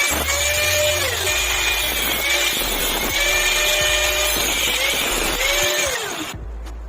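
Angle grinder cutting into steel pipe: a harsh grinding hiss with a motor whine whose pitch rises, holds and dips again and again as the disc is worked through the cut. It cuts off suddenly about six seconds in.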